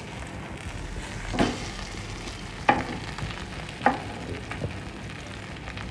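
Rava-coated lepo fish sizzling as it fries in oil in a pan, with three sharp knocks of a utensil against the pan, about a second apart, as the pieces are turned.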